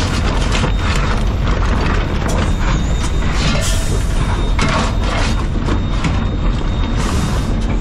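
Steel firing shovel scraping on the tender's shovel plate and coal clattering as it is scooped and fired into a steam locomotive's firebox, in repeated irregular scrapes over the steady low rumble of the locomotive's cab under way.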